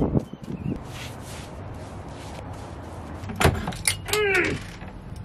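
Knocks and sharp clicks of things being handled at kitchen cabinets, with a short falling squeak about four seconds in.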